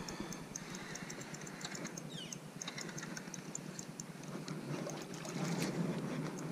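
Fishing reel ticking faintly and unevenly as line is cranked in on a bent rod, over a steady low hum and light wind and water noise on the boat.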